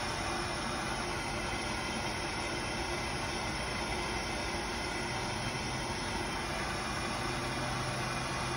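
Hand-held propane torch burning steadily, its flame held on an aluminum joint to heat it for brazing.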